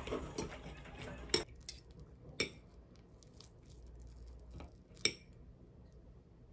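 Metal fork and knife clinking on a glass plate while cutting toast: three sharp clinks, about a second and a half in, near two and a half seconds and about five seconds in, each with a short bright ring.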